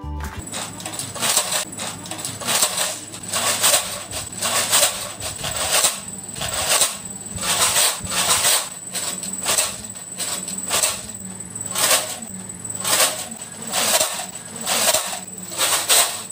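Improvised maracas made from clear plastic bottles, shaken in a steady rhythm, a sharp rattle on each shake about twice a second, often in pairs.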